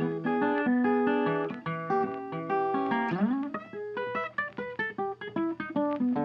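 Background music played on guitar, plucked notes in a steady rhythm, with a brief upward slide about three seconds in.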